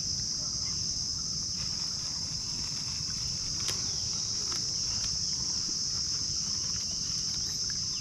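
Steady high-pitched drone of an insect chorus in the trees, unbroken throughout, over a low rumble, with a faint click about halfway through.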